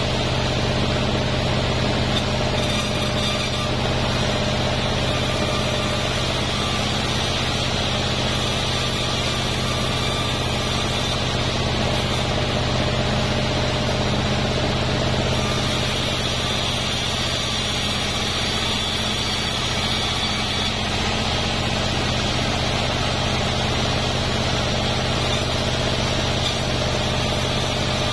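Band sawmill running steadily, its machine hum constant under the noise of the blade ripping lengthwise through a durian wood beam.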